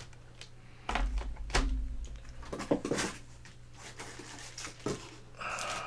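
Hard plastic CGC graded-comic slabs being handled and stacked: a dull low thump about a second in, scattered sharp clacks, and a short rustle of packing near the end.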